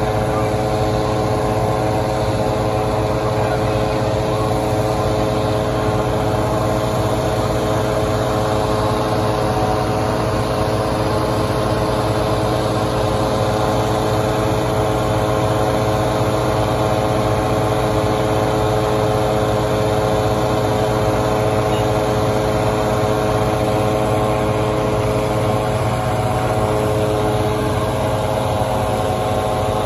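Engine-driven balloon inflator fan running steadily at one unchanging pitch, blowing cold air into a hot air balloon envelope laid out on the ground.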